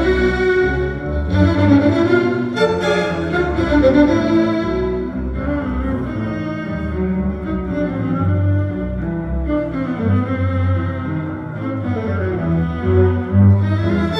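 Live string ensemble of violins, cellos and double bass playing a tango, the cellos and bass carrying a strong low line under the melody.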